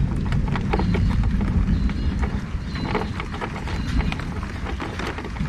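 Low, steady rumble of wind buffeting the microphone, with scattered light knocks and clicks.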